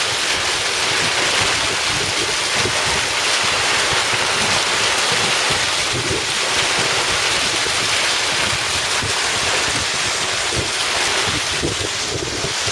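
Typhoon wind and heavy rain: a loud, steady rushing hiss, with gusts buffeting the microphone in an irregular low rumble.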